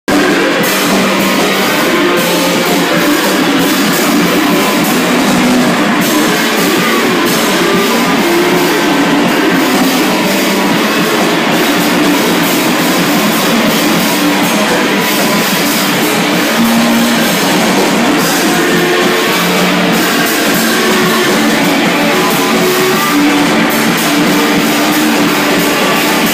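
A rock band playing live: electric guitars and a drum kit merge into a loud, dense, unbroken wall of sound with almost no bass.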